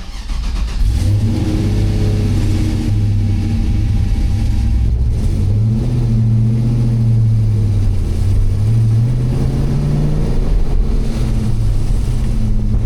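A junkyard 6.0-litre LS V8 with a Truck Norris camshaft, swapped into a 1971 Chevelle, is running under way. Its revs climb and drop several times as the car drives.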